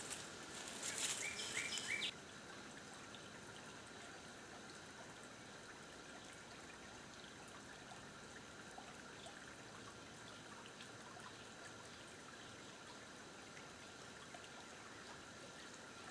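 A person moving through undergrowth rustles and brushes the vegetation for about two seconds, then it cuts off suddenly. After that there is a faint steady outdoor hush with soft trickling from a shallow woodland creek.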